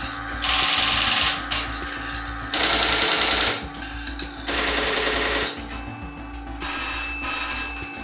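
Step-by-step switches of a UAX 13 telephone exchange clattering in three roughly one-second bursts as it switches a test call. Near the end a telephone bell rings twice in quick succession, the British double ring.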